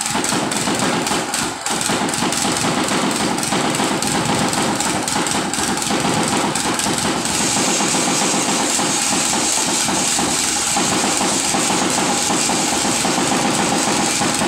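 Mikasa tamping rammer running at full work, its engine going steadily while the foot pounds rapidly and evenly into loose soil to compact it.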